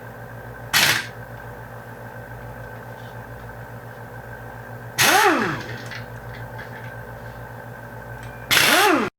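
Impact wrench undoing bolts on a rotary engine's front cover, in three short bursts, the second and third with a motor whine that rises then falls away.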